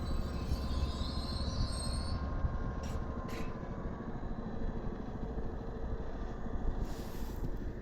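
A train passing, heard as a steady low rumble that is heaviest in the first couple of seconds and then eases off.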